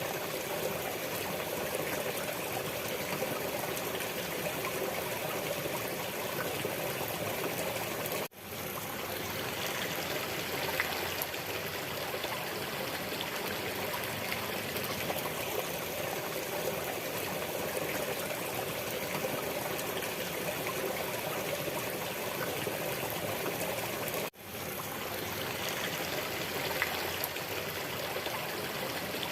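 Steady running water, like a stream, with an even rushing sound. It drops out for a split second twice, about 16 seconds apart.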